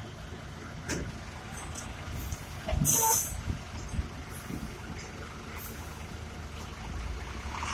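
Heavy diesel dump trucks and an excavator running with a steady low rumble. A short hiss of compressed air, like an air brake releasing, comes about three seconds in.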